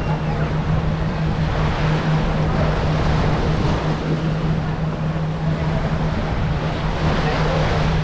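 Seaside ambience: an even wash of surf and wind noise, with a steady low hum running under it.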